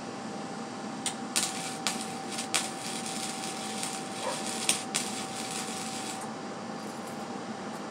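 Wire-feed welder arc crackling and popping unevenly for about five seconds as a bead is run on a steel go-kart frame, starting about a second in and stopping about six seconds in. The welder is at a turned-down power setting.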